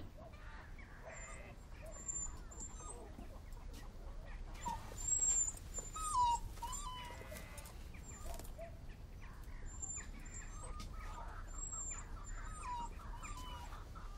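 Faint animal calls: a few short squeaky cries that glide up and down, loudest around the middle, with thin high chirps above them and light rustling underneath.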